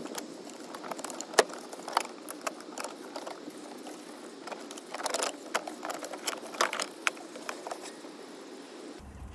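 Irregular small clicks and light metallic knocks as gloved hands work at the brake pipes and ABS/DSC unit of a BMW E90 to free the unit, with a quick cluster of clicks about halfway through.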